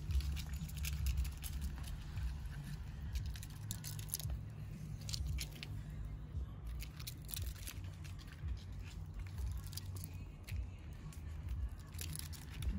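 A squirrel feeding from a gloved hand on a pine trunk: irregular light clicks and scratches of claws on bark and nuts being handled and gnawed, over a steady low rumble.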